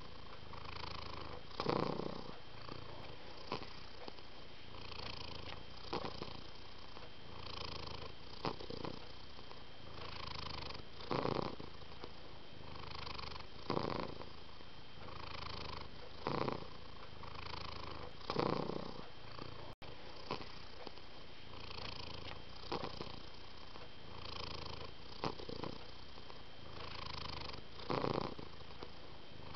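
Domestic cat purring steadily, the purr swelling louder about every two and a half seconds with each breath.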